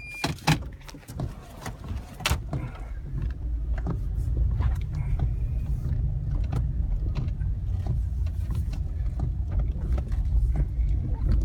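A car's low, steady rumble, with a few sharp clicks in the first couple of seconds.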